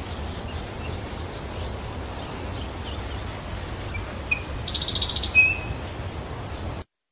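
Birds chirping outdoors over a steady low rumble, with a short flurry of calls about four seconds in that includes a fast high trill. The sound cuts off suddenly near the end.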